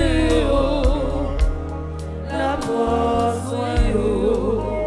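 Haitian gospel hymn music playing: held chords and a bass line, with regular drum hits, under a wavering melody line.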